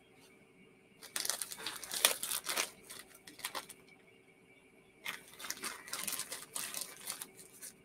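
A crinkly snack wrapper being crinkled and torn open by hand, in two spells of crackling, one starting about a second in and the other about five seconds in.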